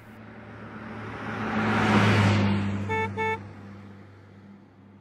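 A car passing by, its engine and tyre noise swelling to a peak about two seconds in and then fading away, with two short horn beeps in quick succession about three seconds in.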